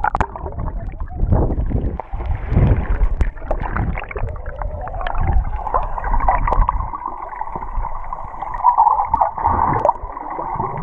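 Muffled water noise heard underwater: sloshing, bubbling and rumbling as swimmers kick around the camera.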